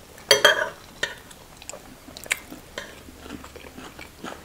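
Close-up eating sounds: chewing of jollof rice with beef and avocado, with spoon and fork clicking and scraping on ceramic plates in a few short sharp ticks. A brief louder sound comes just after the start.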